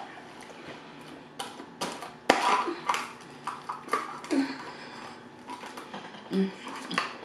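A plastic straw and its wrapper handled and pushed through the lid of a plastic drink cup, making a series of sharp clicks and rustles, the loudest a little over two seconds in. A few short murmurs from the eater come in between.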